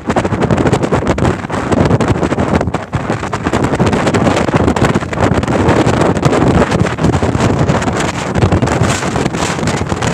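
Loud, uneven rush of wind buffeting the microphone.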